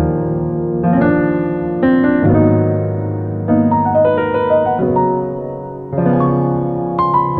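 Background piano music, a new chord struck roughly once a second and left to fade.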